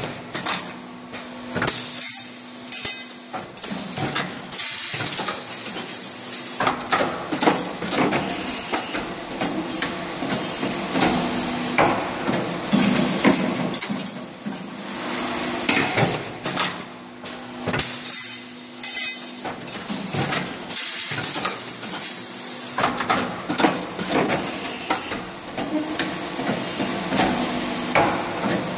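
Automated headrest-rod transfer line running through its cycle: metal clacks and clanks of clamps, grippers and steel rods, with the hiss of air exhausting from the cylinders. The same sequence repeats about every 16 seconds.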